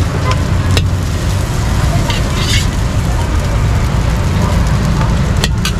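Metal ladle scooping fried rice out of an iron wok onto a plate, with a sharp knock about a second in and another near the end, over a steady low rumble.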